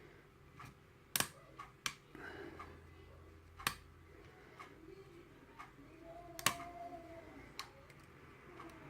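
Lock pick and tension wrench working the pins of an Ilco multi-cylinder lock: a handful of sharp, irregularly spaced clicks with faint scraping, as pins are lifted and set under tension.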